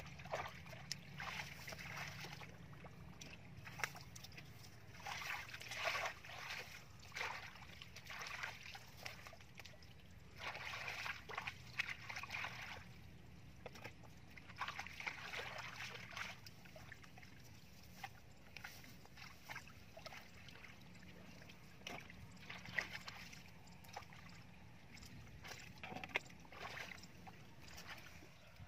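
Hands and a plastic basket splashing and sloshing through shallow muddy water in irregular bursts, while fish are caught by hand.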